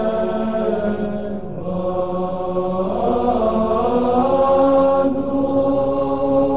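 Slow Orthodox church chant: voices singing long held notes that glide and change pitch every second or two.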